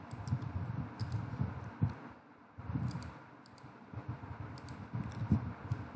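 Computer mouse clicking now and then, a few sharp clicks scattered through, over uneven low thuds.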